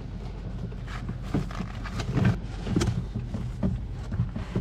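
Bundled electrical cables rustling and knocking against each other and the wooden panel as hands push them aside, with irregular clicks and taps over a steady low hum.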